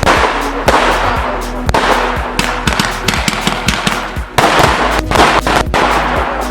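100-shot mixed-calibre fireworks battery (cake) firing in rapid succession: a dense run of sharp shots and bursting shells with crackle between them, louder from about four and a half seconds in. Steady background music plays under the shots.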